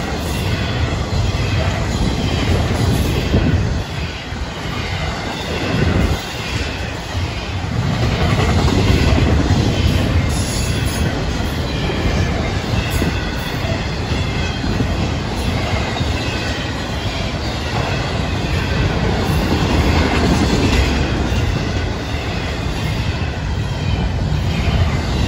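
Intermodal freight train's double-stack container cars and trailer flatcars rolling past, steel wheels rumbling and clacking over the rail joints, with a high wheel squeal at times.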